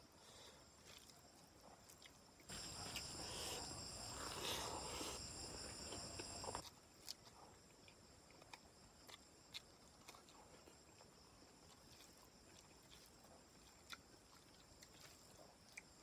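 Faint eating sounds: scattered soft wet clicks from chewing and from fingers mixing rice with chicken curry. For about four seconds in the middle a louder stretch of close chewing noise with a high steady whine, which starts and stops abruptly.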